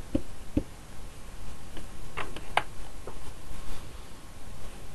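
Small knocks and clicks of a dye ink pad tapped onto a clear rubber stamp on an acrylic block, then of the block being set down on card. There are a few soft knocks in the first half-second and two sharper clicks a little after two seconds.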